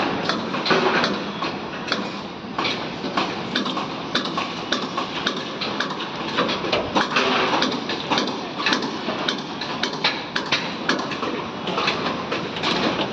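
Construction-site clanking: many irregular knocks and clanks over a continuous busy background.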